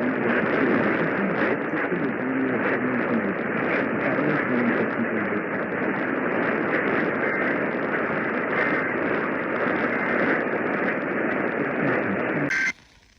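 Radio receiver static: a steady loud hiss with faint wavering traces of audio buried under it. It cuts off abruptly with a click near the end.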